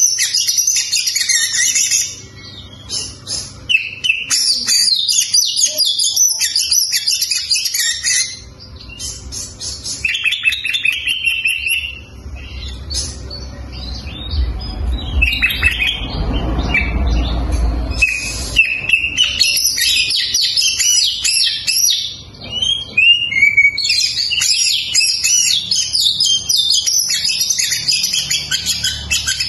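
Oriental magpie-robin singing its full, loud song: rapid, varied high whistles and trills packed with mimicked phrases, delivered in bursts of several seconds with short pauses between. A low rumble runs under the song for a few seconds in the middle.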